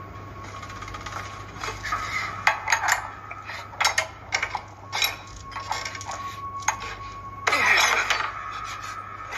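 Film sound effects heard off a screen: a string of sharp metallic clinks and knocks as metal machine parts are handled, over a faint steady high whine. Near the end comes a louder rushing whoosh with a falling sweep.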